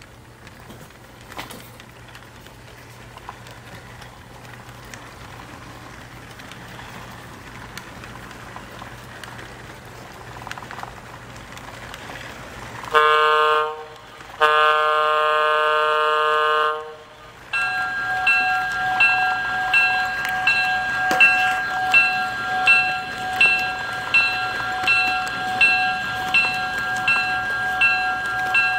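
Large-scale model diesel locomotive running along the track, its running noise growing as it approaches, then two horn blasts from its sound system about 13 seconds in. After that, a bell rings about once a second over a steady tone.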